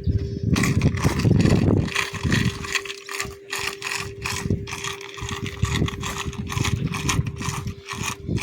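Fishing reel ratchet clicking rapidly, several clicks a second, as line is wound or pulled from the reel, over a steady hum.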